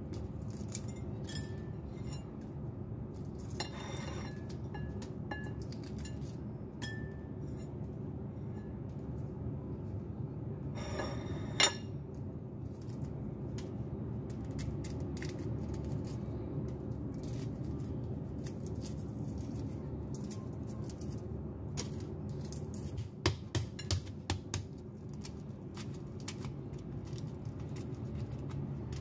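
Soft background music under the small clicks and crackles of century-egg shells being cracked and peeled by hand over a ceramic bowl, with occasional light clinks against the bowl. One sharp click comes a little before the middle, and a quick run of clicks comes about three quarters of the way through.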